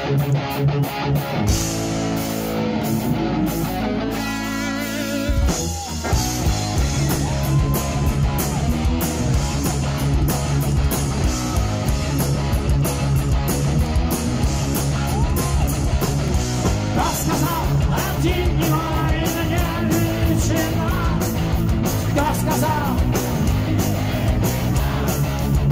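Heavy metal band playing an instrumental passage live: distorted electric guitars, bass and drums. The band thins to held, wavering guitar notes for a few seconds, drops briefly about six seconds in, then comes back in full.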